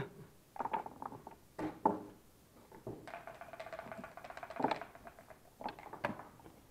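Backgammon checkers, dice and dice cup being handled on the board: a scattered series of sharp clicks and knocks, with a faint steady hum in the middle.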